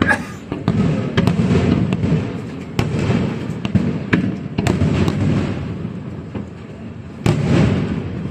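Fireworks display: a series of sharp bangs, each trailing off into a low rumbling echo, with fainter crackles between them. There is a gap of about two and a half seconds before a last loud burst near the end.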